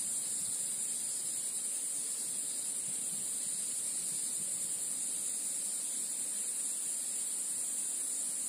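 A steady high-pitched hiss with a faint low rustle beneath it.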